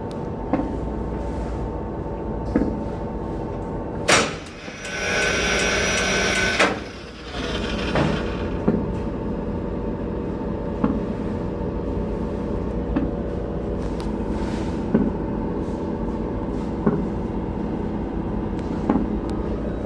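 Electrical hum inside an automatic transfer switch cabinet fed by a running generator, with a short thump about every two seconds. The thumping shows up only when the generator runs; its cause is not known. From about 4 to 7 seconds in, a louder hissing rush with a high whine covers the hum.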